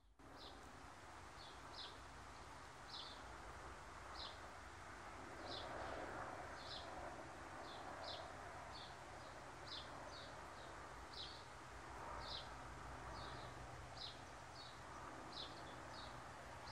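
A steady series of short, high chirps, about one or two a second, from a small animal in the field, over a faint low rumble.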